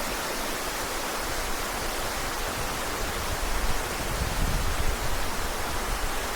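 An 80-foot waterfall rushing steadily: an even, unbroken wash of falling water.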